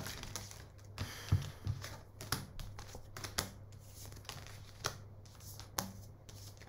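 Tarot cards being shuffled and handled: a scatter of soft, irregular flicks and clicks over a steady low hum.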